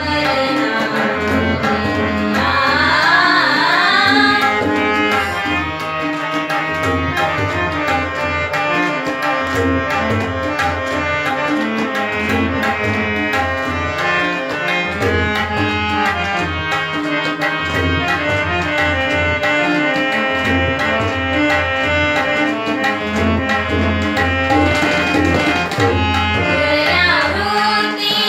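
Harmonium and tabla playing together: the harmonium holds a steady chord-drone melody over a regular tabla rhythm with deep bass strokes. Young women's voices sing about two seconds in and again near the end, with an instrumental stretch between.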